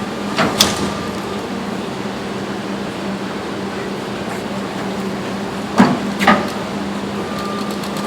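Steady machine hum of heavy equipment running, with two pairs of sharp knocks, one about half a second in and one about six seconds in.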